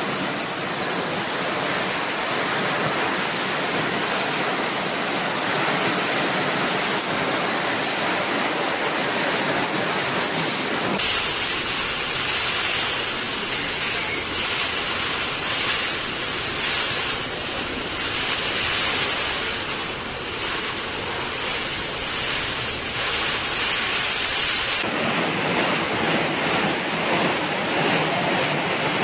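Tornado-force wind as a steady, loud rushing noise, with gusts buffeting the phone's microphone. The noise changes character abruptly twice, at about 11 and 25 seconds in, as one recording cuts to another.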